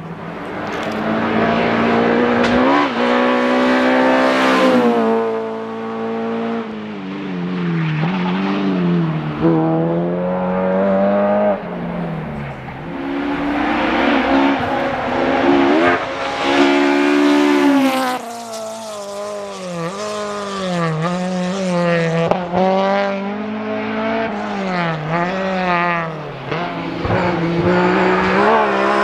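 Rally car engine revving hard on a tarmac special stage, its pitch climbing and dropping again and again as the driver accelerates, shifts and lifts for corners.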